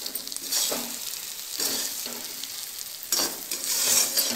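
Stuffed baby brinjals in green coriander masala sizzling in a little oil in a kadai, with a spatula stirring and scraping through them in several louder strokes.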